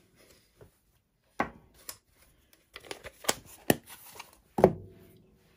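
Plastic ink pad case being handled on a craft table: a series of light clicks and taps, with a sharp, louder snap near the end.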